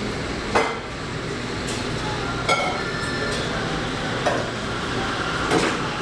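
Café ambience: a steady background din with several sharp clinks and knocks of crockery and cutlery, one with a brief ring like a cup or plate being set down.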